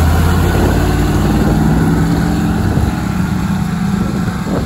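Monster truck's engine running as the truck pulls away and drives off across a field, its steady hum growing fainter near the end as it moves away.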